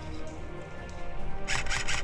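A burst of rapid airsoft gunfire starting about one and a half seconds in, roughly eight shots a second.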